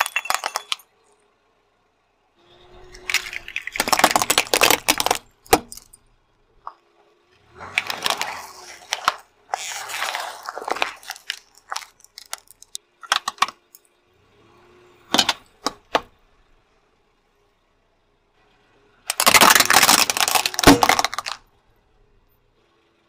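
A car tyre rolling over and crushing small objects one after another: a ceramic aroma burner breaking apart, packaged gifts, and plastic cups with balloons. About six separate bouts of crunching, crackling and snapping come with quiet gaps between, the longest and loudest near the end.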